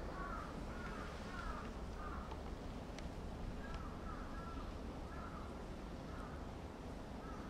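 A bird calling over and over: short, arched calls in quick runs, over a steady low rumble.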